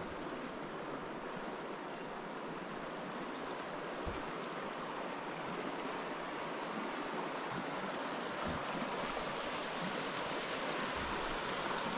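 Steady rushing and rippling of a river's current, growing slightly louder toward the end.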